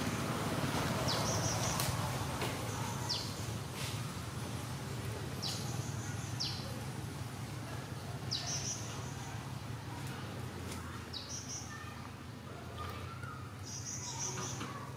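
A bird calling over and over: short high calls, each a quick falling sweep followed by a brief held note, every second or two, over a steady low hum.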